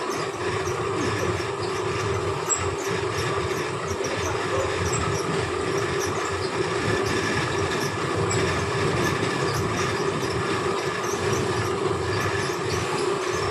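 Fabric checking machine running steadily as cloth feeds through it: an even mechanical hum and rumble with no breaks.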